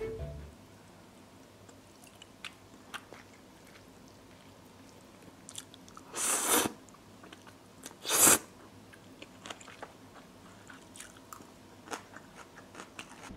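Close-up eating sounds: quiet chewing and small mouth and chopstick clicks, with two loud slurps of spicy noodles about six and eight seconds in.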